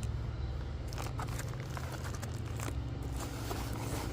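Plastic packaging crinkling and rustling in a few short crackles as a pack of axle tie-down straps is handled and unwrapped, over a steady low hum.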